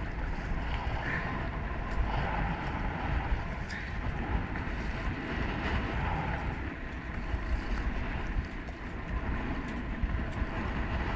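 Wind rushing over the microphone in a steady low rumble, with choppy water lapping against a kayak's hull.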